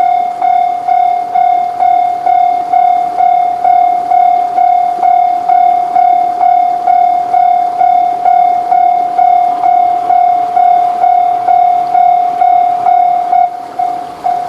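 Japanese railroad level-crossing warning bell ringing, a steady, evenly repeated electronic ding about twice a second. It gets quieter about a second before the end.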